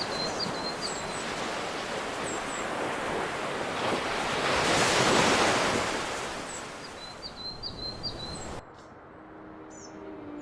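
Ocean surf: a wave builds, breaks loudest about halfway through and washes out, with small birds chirping over it. Near the end it cuts suddenly to quieter background with bird chirps.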